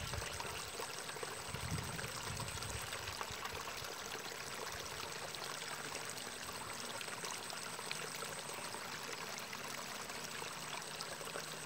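Water running steadily in a small rice-field ditch, an even trickling sound with no breaks.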